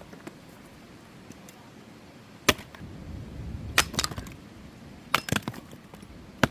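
Sticks of green and punky wood being bashed hard to break them up: sharp cracking impacts, single and in quick groups of two or three, about a second apart. The punky wood bursts apart when struck.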